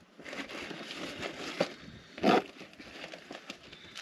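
Rustling and small clatters of gear being handled by hand, with one louder knock a little over two seconds in.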